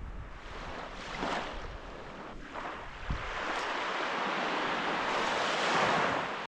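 Sea waves washing onto a sandy beach, a steady surf hiss that swells louder about halfway through, with gusts of wind buffeting the microphone; it cuts off abruptly near the end.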